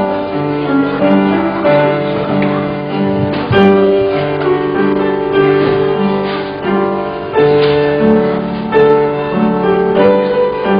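Keyboard playing sustained chords of a church praise song, the chords changing about once a second.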